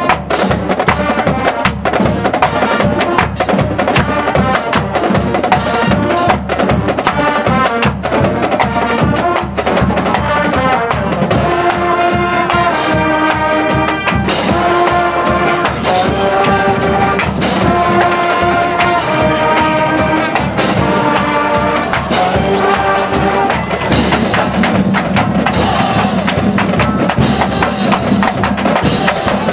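Marching band playing: the drumline's bass drums, snares and cymbals beat a fast, steady rhythm throughout, and trumpets and other brass come in from about ten seconds in with held notes that step up and down, dropping out again a few seconds before the end.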